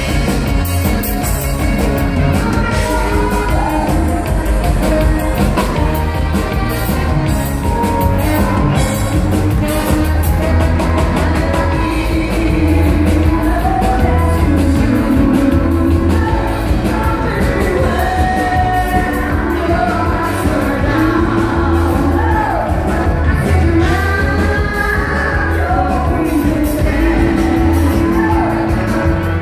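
Live band playing amplified music: a woman singing lead into a microphone over a drum kit, electric guitar and keyboard, with a steady beat.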